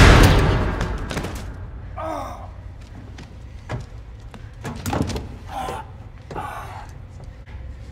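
Film sound effects: the loud tail of an explosion dying away over the first second, over a low steady rumble. A handful of scattered thuds and knocks follow.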